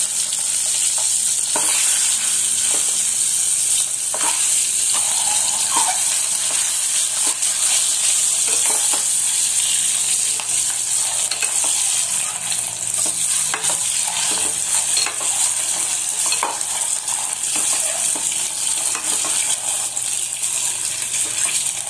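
Whole boiled eggs sizzling steadily as they fry in hot oil with turmeric in a metal pot, with scattered taps and scrapes of a metal spatula turning them.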